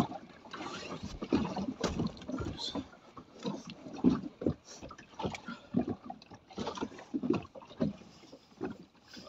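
Small fishing boat riding at anchor: irregular slaps and knocks of water against the hull, mixed with handling noise as tackle is worked at the gunwale.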